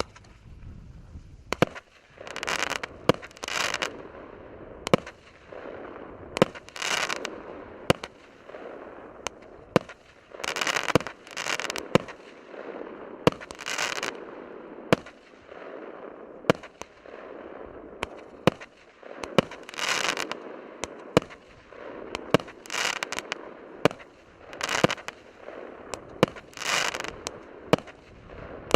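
Consumer fireworks battery (cake) firing its shots in steady succession, one about every second or two. Each shot is a sharp report, often followed by about a second of crackling as the stars burst.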